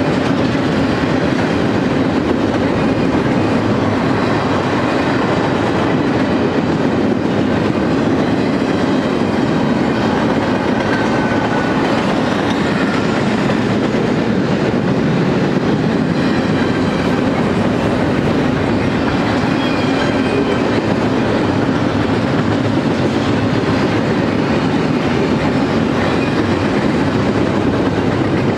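Double-stack intermodal freight train's container-laden well cars rolling past: a steady rumble and clatter of steel wheels on the rails, with a few faint, brief high wheel squeals.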